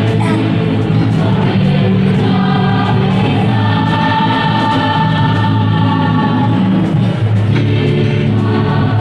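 School choir singing a song in several-part harmony, with long held notes near the middle.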